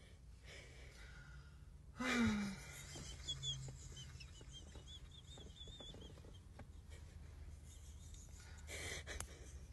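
A person's voice: one short sound falling in pitch about two seconds in, followed by faint high warbling tones and scattered small clicks and rustles.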